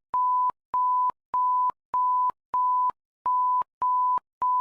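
Emergency Alert System attention signal: a single steady tone pulsed in short beeps at an even pace, about eight in a row, with a slightly longer gap about three seconds in.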